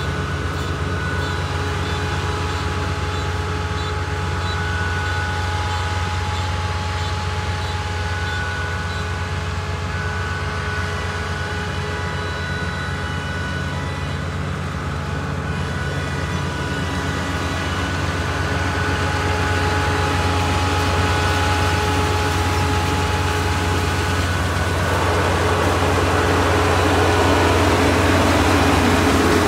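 Kubota ER448 combine harvester running steadily: a low drone from its 48-horsepower engine under many steady whining tones from the machinery. It grows louder in the last few seconds, and a rushing noise joins in near the end.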